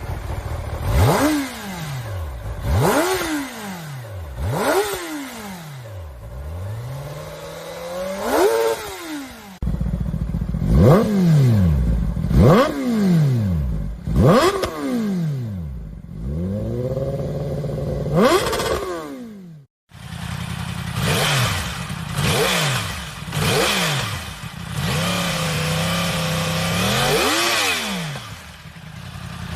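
Superbike inline-four engine revved again and again in sharp throttle blips, the pitch shooting up and falling back about every two seconds, with a few longer held revs. Three separate clips are spliced together, cutting about ten and twenty seconds in.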